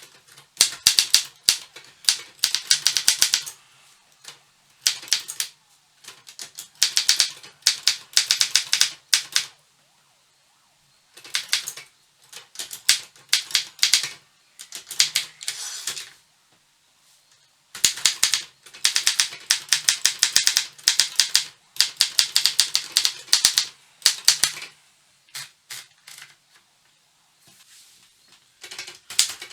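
Optima Elite-3 manual portable typewriter being typed on: fast runs of key strikes in bursts of a few seconds, separated by short pauses, thinning to scattered strokes near the end.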